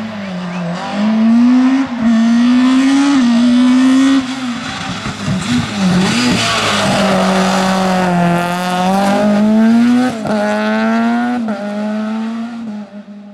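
Rally car engine at high revs pulling hard through a hairpin, its pitch climbing and dropping sharply several times with gear changes and throttle lifts, with a brief tyre squeal about six seconds in. The engine fades away near the end.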